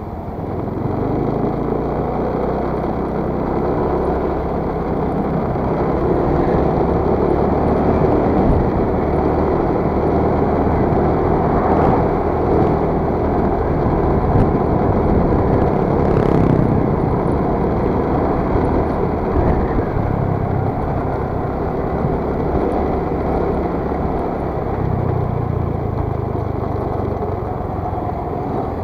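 Ride on a scooter: steady wind rush over the mic, mixed with the scooter's engine and road noise. It stays at a constant loudness, with small rises and falls in the low rumble.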